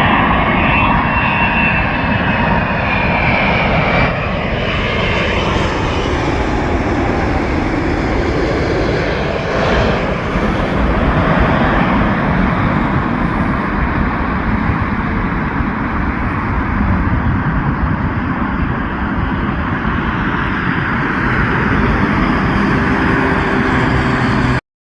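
Emirates Airbus A380's four Engine Alliance GP7200 turbofans as the jet passes. A whining tone falls in pitch over the first few seconds, then a steady loud jet rumble runs on and cuts off abruptly near the end.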